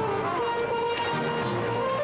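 Orchestral background music with held notes at a steady level.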